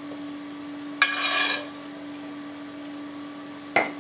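Metal spoon scooping sautéed onion and carrot from a skillet into clay pots: a sharp ringing clink with a short scrape about a second in, and another sharp knock near the end, over a steady low hum.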